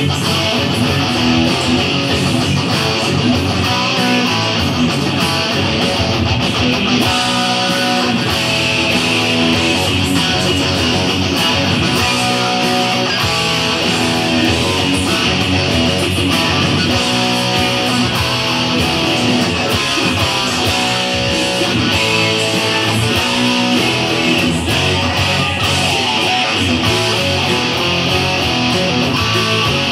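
Electric guitar playing a continuous rock part along with a band recording of the song.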